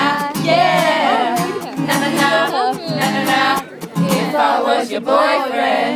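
Live pop song: a male singer with a strummed acoustic guitar, and a crowd of fans singing along with him.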